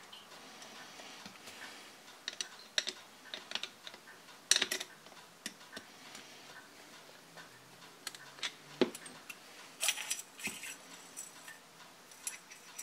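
Irregular light clicks and taps of small metal and plastic airsoft gas magazine parts being handled and worked into place by hand, with a few sharper clicks about four and a half seconds in and again around nine and ten seconds in.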